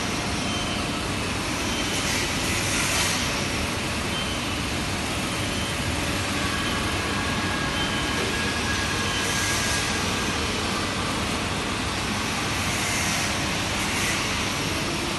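Drum nut roaster running: a steady mechanical whir of the turning drum and its fan, with a hiss that swells every few seconds.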